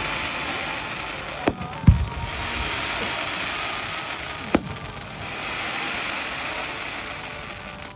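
Fireworks bursting: a steady dense crackle and sizzle, with sharp cracks about one and a half seconds in and again past four and a half seconds, and a deep boom near two seconds.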